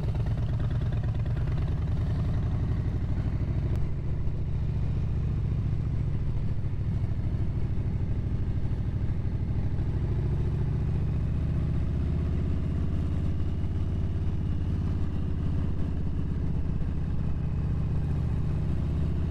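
Stage 1 2020 Harley-Davidson Street Bob's Milwaukee-Eight V-twin running steadily while the motorcycle rides along, its pitch wavering only slightly.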